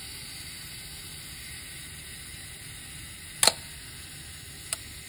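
Canon F-1's mechanical shutter firing from the self-timer with the mirror locked up: a sharp click about three and a half seconds in, then a fainter click just over a second later, over a faint steady hiss.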